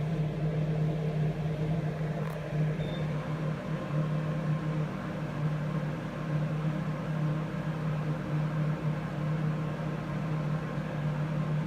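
A lathe running steadily with a constant machine hum that swells and fades slightly at an even rate.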